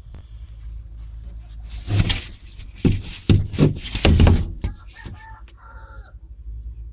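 A broody hen sitting on her eggs, making a run of loud, harsh, raspy calls about two seconds in, followed by a few short pitched calls.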